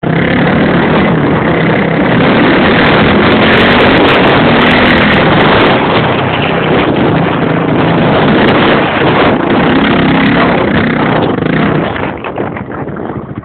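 Motocross bike engine running loud at high revs, its pitch shifting as it climbs. About twelve seconds in it drops away to a quieter, steadier engine note.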